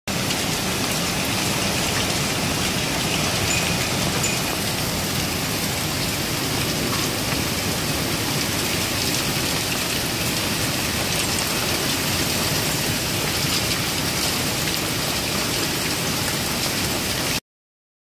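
Heavy wind-driven rain pouring down in a severe thunderstorm, a dense steady hiss that cuts off suddenly just before the end.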